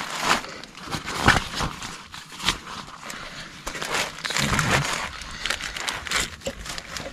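Plastic bags crinkling and rustling as they are handled and shifted, with a few sharp knocks and clicks among them.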